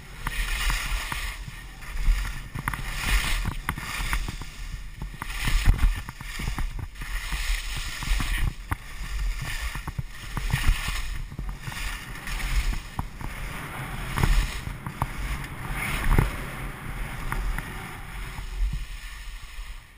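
Skis scraping and hissing across snow in repeated turns, a swish about every second, with wind rumbling on the action camera's microphone. It eases off in the last second.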